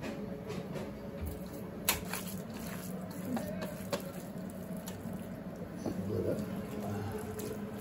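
Steady low hum throughout, with scattered sharp clicks and soft wet sounds of raw minced meat being scooped by hand from a steel mixing bowl.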